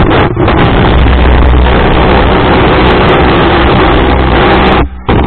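Speedboat running fast across the water: a loud, steady rush of engine, wind and spray over a low engine drone. It cuts out for a moment near the end, then resumes.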